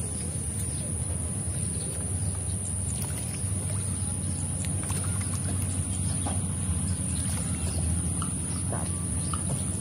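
A hooked tilapia splashing and swirling at the pond surface as it is played on a rod, with scattered small clicks, under a steady low rumble and a steady high-pitched whine.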